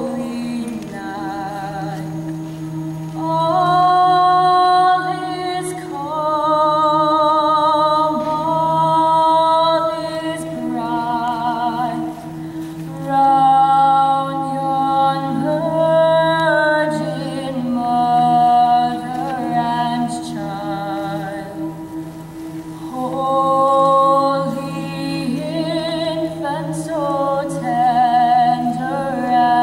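A female soloist sings a slow melody with vibrato in phrases of a few seconds, over a school choir holding long sustained low chords beneath her.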